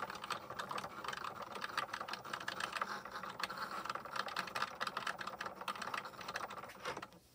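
Cricut Joy cutting machine running a cut in cardstock: its carriage motors whirring with a fast, continuous run of small clicks and ticks as the blade moves. The sound cuts off suddenly near the end.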